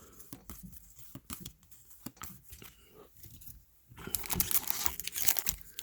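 Scattered light ticks of card handling, then about four seconds in a trading card pack's wrapper is torn open and crinkled, much louder.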